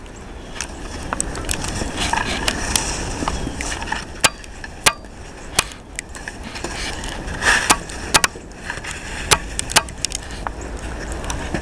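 Snow shovel scraping over a driveway with irregular sharp knocks and clacks as the blade strikes the pavement.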